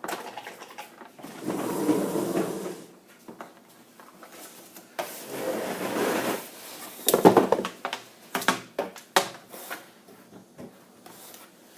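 Water glugging from the inverted tank of a Vicks Cool Mist filter-free humidifier into its base as the base fills, in two spells of a second or two each. A run of sharp plastic knocks and clicks follows from the unit being handled.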